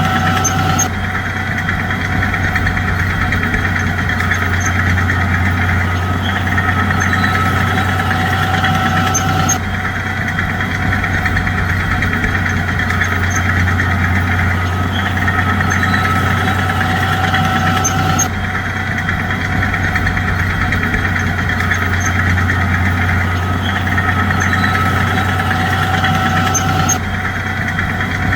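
Bulldozer's diesel engine running steadily, with a constant low drone. The same stretch of engine sound repeats about every nine seconds, like a looped track.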